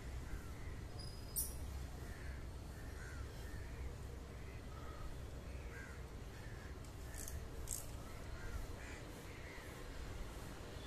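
Crows cawing over and over in short calls, with a steady low rumble underneath and a few sharp clicks.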